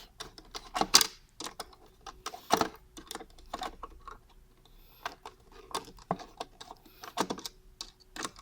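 Irregular clicks, taps and knocks of a flat screwdriver working the screws of a monitor's stand base, with the parts being handled.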